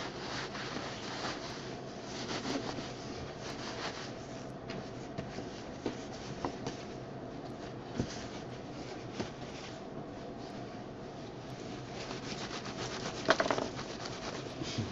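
Crosnes (Chinese artichoke tubers) and coarse salt being rubbed vigorously together inside a cotton tea towel: a steady rough rubbing of cloth and grit with scattered small clicks, louder for a moment near the end. The salt scours the tubers clean.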